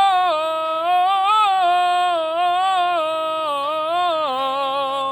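A singer's voice holding one long "ah" vowel through a three-tone vocal exercise, stepping up and down between a few held notes with a light vibrato. It stops abruptly right at the end.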